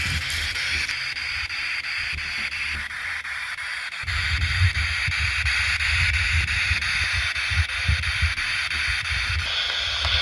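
Spirit box radio hissing with steady static as it sweeps. About four seconds in, irregular low rumbling thumps join underneath.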